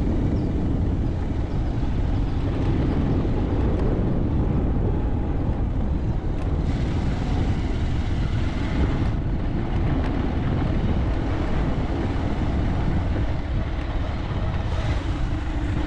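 Steady low rumble of wind buffeting the microphone of a camera riding on a moving bike, with a hissier stretch about seven seconds in that lasts a couple of seconds and another near the end.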